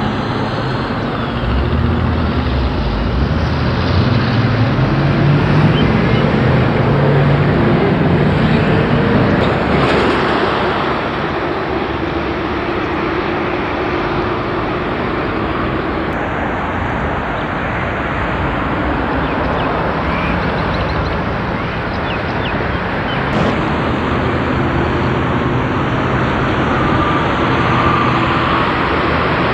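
Continuous freeway traffic: cars passing at speed, a steady mix of tyre noise and engine drone that swells as vehicles go by.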